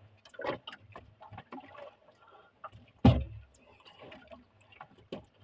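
Fishing hand line being hauled in hand over hand aboard a small boat: scattered light ticks and rustles, with one dull thump about three seconds in.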